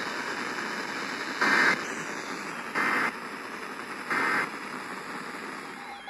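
Radio static hiss broken by three short bursts of Emergency Alert System digital data tones, evenly spaced about 1.3 seconds apart: the end-of-message code that closes an EAS alert.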